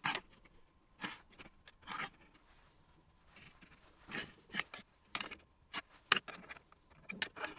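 Small metal tools, a steel square among them, handled on a wooden jig and workbench: a string of light clicks, taps and scrapes at irregular intervals, the sharpest about six seconds in.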